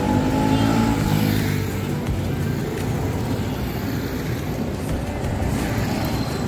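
Motorcycles passing close by with their engines humming, loudest in the first second or two, then fading into a steady hum of street noise.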